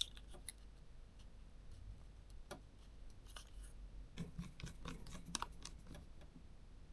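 Faint scattered clicks and light handling noises from the small parts of a Samsung NX mini 9-27mm lens being fitted back together by hand, with more of them in the second half.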